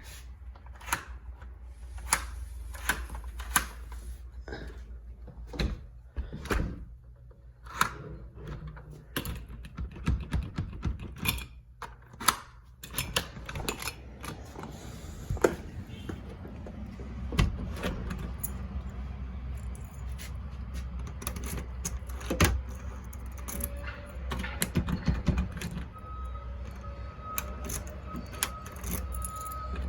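Keys jangling and scattered sharp clicks and knocks from a keypad deadbolt's hardware being handled and worked by hand.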